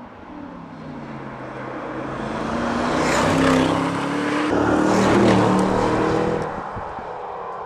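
Aston Martin DBX 707's twin-turbo V8 accelerating past, the engine note rising and swelling with a brief dip about halfway through, then climbing again before fading away.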